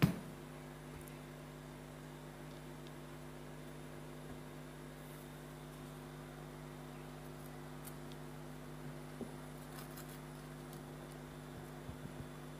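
Steady low electrical hum with a sharp click right at the start and a few faint ticks near the end.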